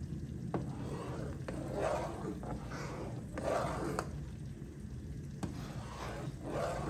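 Faint stirring in a pan of chicken Alfredo sauce: a few light clicks of a utensil against the pan, with soft scraping noises over a low steady hum.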